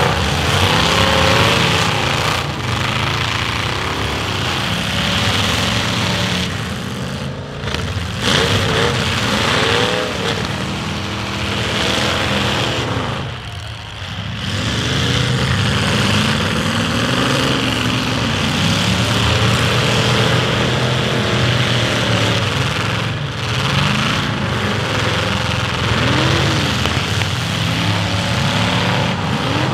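Several demolition derby stock cars' engines revving hard at once, their pitches rising and falling over one another as the cars accelerate and ram, with a brief lull about halfway through.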